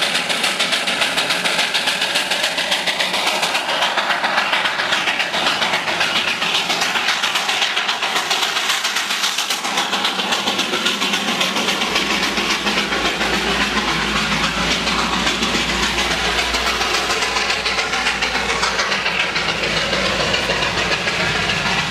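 Darjeeling Himalayan Railway 0-4-0 saddle-tank steam locomotive chuffing steadily. Its exhaust beats come fast and evenly over a hiss of steam.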